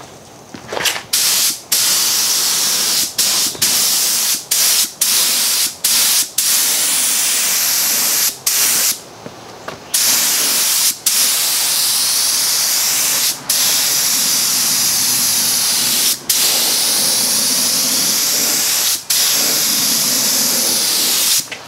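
DeVilbiss FinishLine gravity-feed air spray gun hissing as it lays on a coat of wood sealer, stopping abruptly each time the trigger is let go at the end of a pass. The stops come every half second or so at first, then there is a pause of about a second and a half, then longer passes of two to three seconds each.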